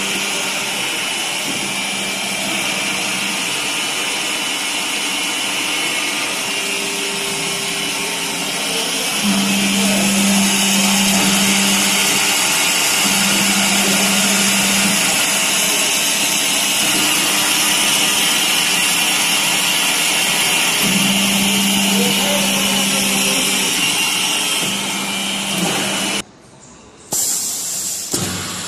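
Drill presses with multi-spindle heads drilling and tapping: a steady machine whine and hiss, with a low hum that switches on and off several times. The sound drops away briefly near the end.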